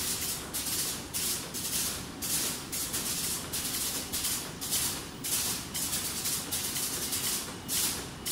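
Plastic bag-making machine running, with a rhythmic hiss about twice a second over a steady low rumble.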